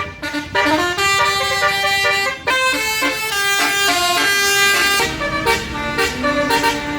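Bus telolet horn, a Basuri multi-tone air horn, playing a quick melody of held notes that step up and down in pitch, with a brief break near the start and another about two and a half seconds in.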